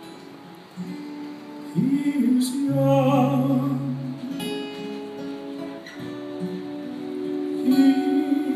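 Live male tenor voice singing long held notes with vibrato over guitar accompaniment. The first couple of seconds are softer guitar alone, with the voice coming in about two seconds in and swelling again near the end.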